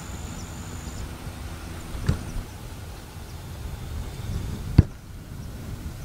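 Low wind rumble on the microphone, with two sharp knocks about two and five seconds in, the second the louder, from the camera being handled.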